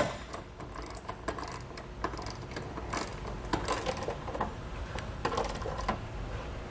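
Ratchet with a 13 mm socket clicking in short irregular runs while tightening the bolts of a nerf-bar mounting bracket to the truck, with light metal clinks of the tool on the bolt.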